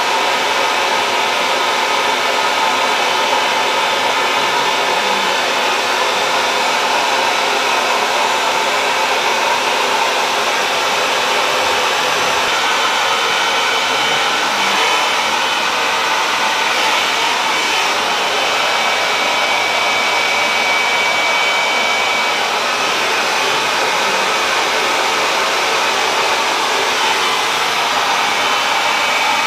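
Handheld hair dryer fitted with a diffuser, running steadily: a constant rush of air with a faint motor whine.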